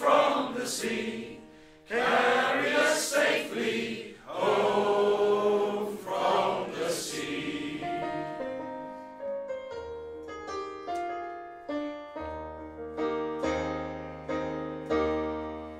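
A choir singing long, loud held notes; from about halfway a piano carries on alone, playing the closing chords with deep bass notes as the music dies away.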